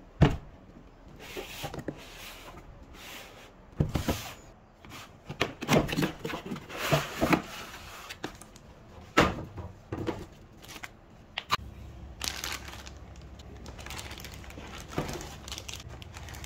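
Toy packaging being handled: plastic bags and wrap crinkling, and parts and a moulded paper-pulp tray rubbing and knocking, with several sharp knocks among irregular rustles.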